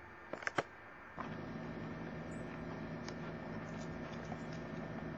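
A few sharp clicks in the first second, then after a cut a steady low hum with hiss and a few faint ticks.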